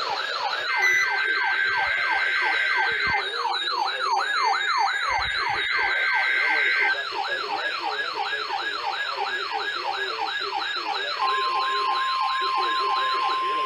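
Weather alert radio sounding its siren alarm: a fast wail sweeping up and down about three times a second. Steady high beeping tones come and go alongside it for the first several seconds, and a steady tone joins it about eleven seconds in.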